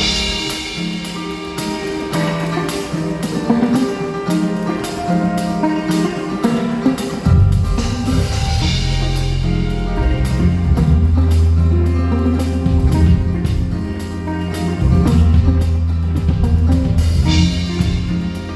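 Live band playing with drum kit and guitar. Deep bass notes come in about seven seconds in and fill out the sound.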